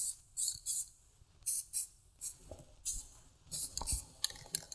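Aerosol spray-paint can hissing in about a dozen short, quick bursts of a few tenths of a second each, often in pairs, as paint is dusted on in light passes.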